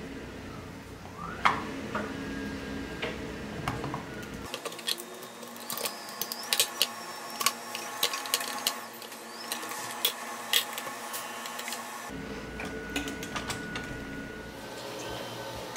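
Clicks and taps of a Tonka toy truck's plastic cab interior and clear windshield being handled and pressed into its steel cab, with a quick run of sharp clicks through the middle.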